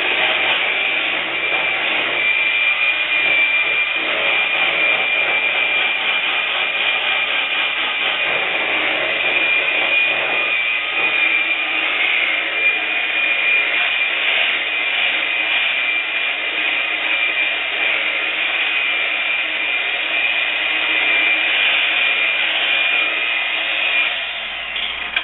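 Handheld electric blender running steadily as it mixes pancake batter: a constant high motor whine over a rushing whir. It stops right at the end.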